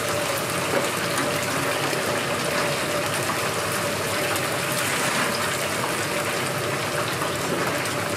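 Chicken deep-frying in hot oil: a steady sizzling hiss, with a faint steady hum underneath.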